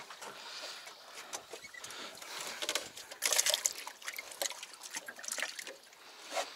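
Knocks, rustling and trickling water in a small fishing boat as an angler plays a fish just hooked on a feeder rod, with the loudest clatter about three seconds in.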